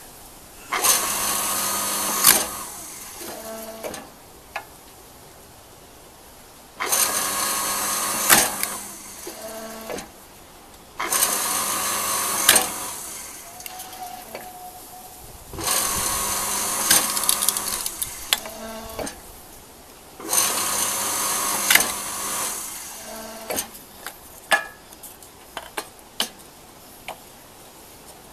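Electric log splitter running in five short bursts, one every four to six seconds, each a steady motor hum lasting about a second and a half. Each burst ends in a sharp crack as the ram forces a small piece of wood through the wedge into kindling, and the motor sound fades after it. Between bursts and near the end come light knocks of wood pieces.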